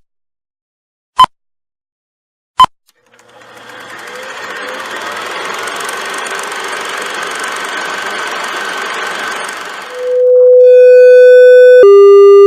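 Three short beeps about a second and a quarter apart, like a film-leader countdown, then a steady mechanical whirring that fades in and runs for several seconds, then a loud held electronic tone that steps down to a lower one.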